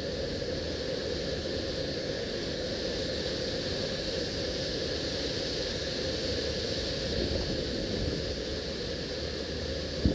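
Steady, even hum and hiss of running machinery, unchanging throughout, with one sharp click near the end.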